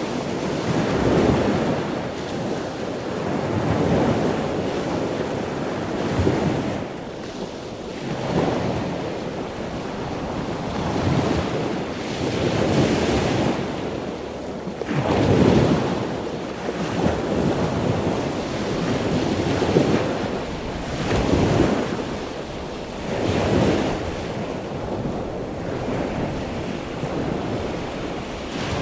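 Ocean waves washing in and breaking, one surge after another every couple of seconds, with a steady rumble of wind on the microphone.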